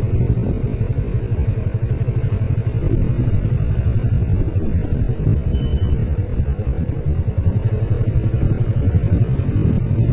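Motorcycle engine running steadily at cruising speed, heard from the rider's seat, mixed with a low rumble.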